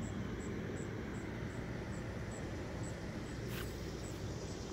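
Outdoor ambience: a steady low rumble with a faint high chirp repeating about twice a second.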